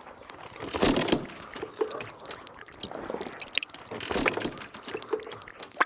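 Wet crunching and squelching: a dense, irregular run of crackles and clicks, typical of apples being crushed.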